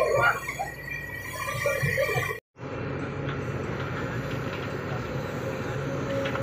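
Sumitomo hydraulic excavator's diesel engine running steadily as the bucket works a pile of earth: a continuous drone with a faint steady whine. The sound drops out for an instant about two and a half seconds in, then the drone continues.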